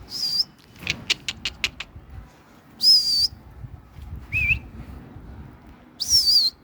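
A man whistling short, high whistles to pigeons in flight, four in all: the third short and rising, the last falling. Between the first two comes a quick run of about six sharp clicks.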